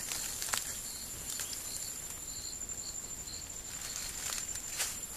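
Faint insects: a steady high-pitched whine, with short chirps repeating about twice a second in the middle, and a few soft clicks.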